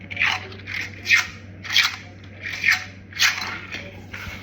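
Squishy toys and their wrapping being handled: a quick series of about seven short crinkling, crunchy scrunches, roughly two a second.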